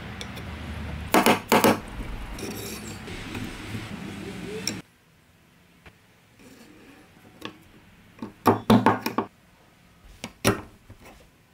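Sharp metal clicks and snaps from a restored vintage stapler as it is reassembled, loaded with a strip of staples and worked, with a loud cluster of clacks about two thirds of the way in and a single clack near the end. Background music plays under the first few seconds and then stops.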